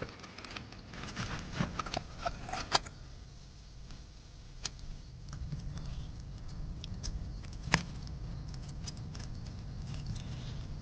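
Irregular small clicks and light knocks, thickest in the first few seconds, with one sharper knock a little past the middle, over a faint steady low background.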